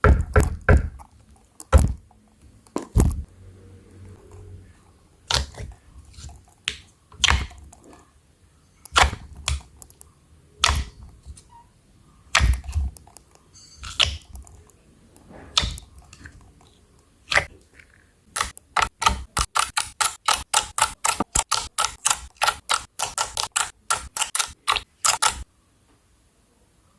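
Clear slime being squeezed and poked, giving sharp wet popping clicks, spaced irregularly at first, then a fast run of about four pops a second near the end before it stops suddenly.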